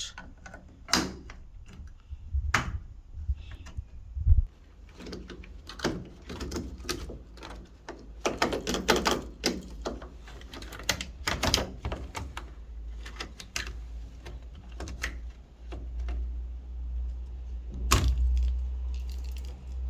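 Flat screwdriver prying at the plastic clips that hold a washing machine's pressure switch sensor: a long run of irregular clicks, taps and plastic knocks, with a sharper snap near the end.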